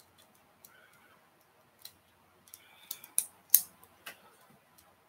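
Plastic Bakugan figure's hinged parts clicking as they are folded into ball form: a run of sharp clicks from about two seconds in, the loudest one about three and a half seconds in.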